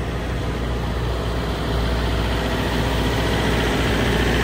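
City street traffic with a steady low engine rumble from vehicles idling close by, growing a little louder about halfway through.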